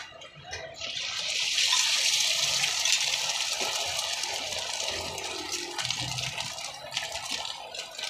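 Several eggs hitting a hot flat steel griddle and sizzling loudly. The sizzle starts about a second in and slowly dies down.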